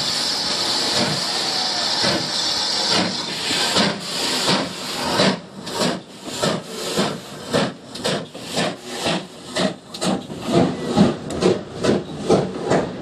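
GWR 2251 Class 0-6-0 steam locomotive starting away with a train: a steady hiss of steam, then about four seconds in its exhaust beats come through and quicken to over two a second.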